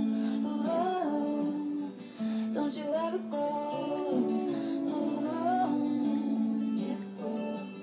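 Pop song with strummed acoustic guitar and a woman singing.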